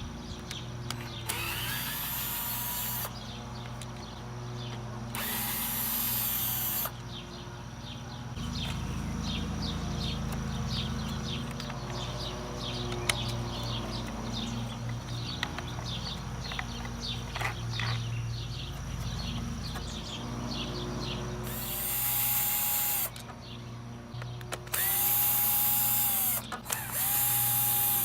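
Cordless drill/driver spinning in several short runs, with small clicks and rattles of screws and parts being handled between them: taking apart a compound miter saw's housing to get at the switch.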